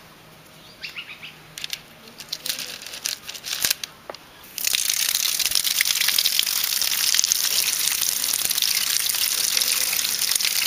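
Metal tongs clicking and scraping against stones as the cuttlefish-bone mould is lifted out. About four and a half seconds in, a loud, dense crackling hiss starts suddenly and keeps on.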